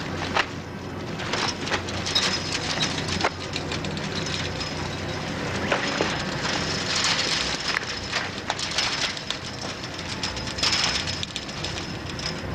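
Chain-link fence rattling and clinking under a climber's hands and feet, many short irregular metallic clicks over a steady background noise.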